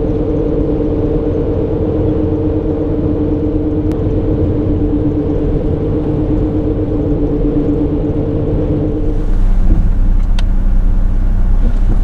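Road noise inside a moving vehicle cruising on a highway: a steady drone over a low rumble. About nine seconds in the drone stops and a louder, rougher low rumble takes over.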